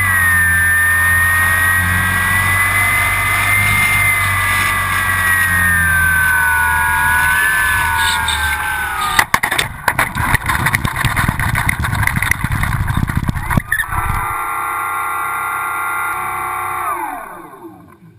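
Onboard sound of an E-flite T-34 Mentor RC plane: its electric motor and propeller whine over wind rush, the pitch slowly falling. About nine seconds in the plane touches down with a clatter and rattles as it rolls over rough ground. Near the end the motor whine drops away and stops.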